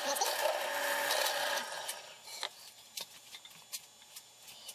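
Drill press boring a 1/8-inch hole in wood: a steady cutting noise for about a second and a half that then stops, followed by a few light clicks and knocks.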